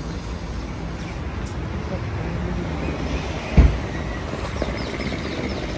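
New Hyundai Creta SUV rolling slowly forward, a low steady engine and tyre rumble with wind on the microphone. A single loud low thump comes a little past halfway, and a few short high chirps are heard near the end.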